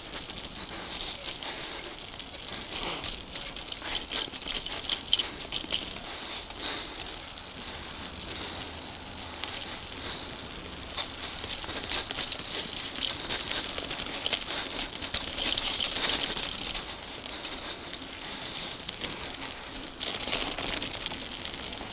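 Mountain bike rolling fast over a dirt singletrack: a continuous dense rattle and clatter from the bike jolting over bumps, with the tyres crunching on the dirt.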